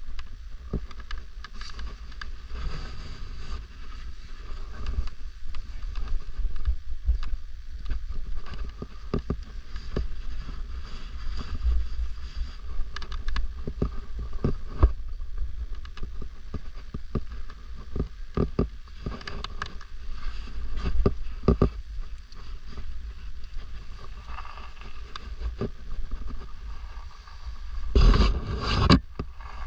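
Wind rumble on an action camera's microphone, with scattered clicks, knocks and scrapes from a climber moving and handling gear. A louder burst of noise comes near the end.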